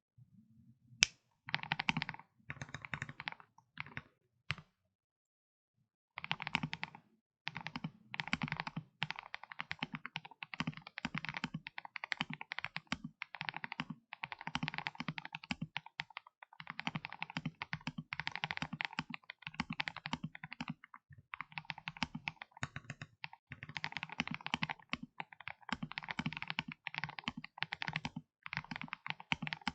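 Typing on an Akko ACR75 mechanical keyboard fitted with lubed Akko Matcha Green switches, lubed and clipped Durock stabilizers, PE foam and a tape mod. There is a few short bursts of keystrokes and a brief pause, then steady fast typing.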